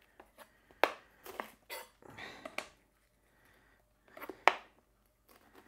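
Kitchen knife cutting Brussels sprouts in half on a plastic chopping board: several sharp, irregular knocks of the blade hitting the board, the loudest about four and a half seconds in, with softer rustling of sprout leaves between.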